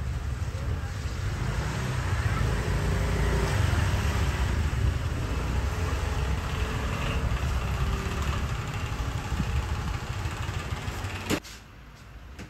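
Street traffic, a steady low rumble of passing vehicles. It cuts off abruptly near the end, leaving a quieter background.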